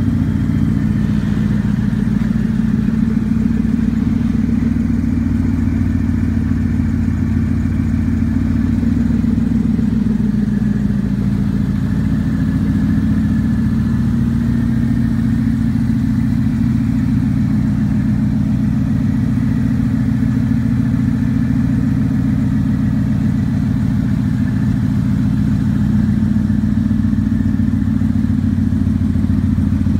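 Superformance Mark III Cobra's 5.0-litre Ford Coyote V8 idling steadily through its side exhaust pipes, a deep, even exhaust note with no revving.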